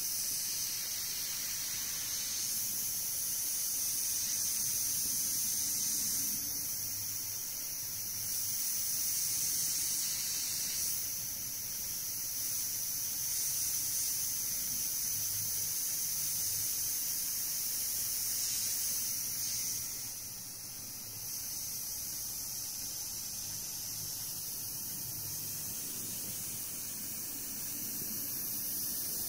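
Gravity-feed airbrush spraying paint: a steady, high-pitched hiss of air through the nozzle, rising and falling a little in level.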